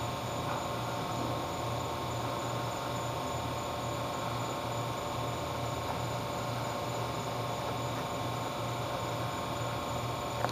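Steady electrical hum and hiss, with several faint steady tones. There is one sharp click near the end.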